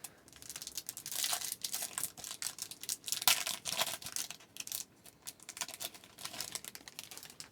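Hockey card pack wrapper being torn open and crinkled by hand: a run of irregular crackles and rustles, loudest about a second in and again about three seconds in.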